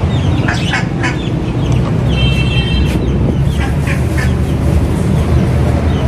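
Chickens clucking and calling in short notes over a steady low rumble, with a short high steady tone about two seconds in.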